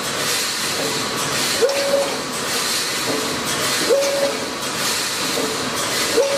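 Welded wire mesh production machine running in its cycle, over a steady hiss. About every two and a quarter seconds comes a click and a short motor whine that rises quickly and then holds, three times.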